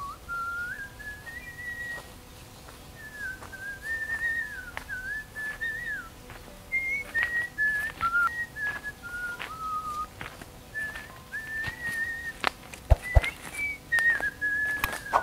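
A person whistling a wandering tune in short phrases with brief breaks, over scattered crackles and snaps of footsteps through leaves and undergrowth that come closer and louder in the second half.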